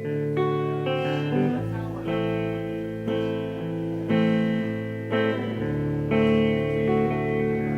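Live folk-rock band playing the instrumental intro of a song: guitar chords ringing and changing every second or so, with bass notes moving underneath.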